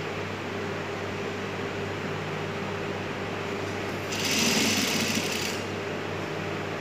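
JUKI industrial sewing machine running one short burst of stitching, about a second and a half long, starting about four seconds in, over a steady background hum.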